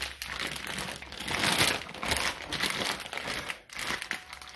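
Plastic zip-top freezer bag crinkling in irregular bursts as hands handle and press a slab of pork belly curing inside it.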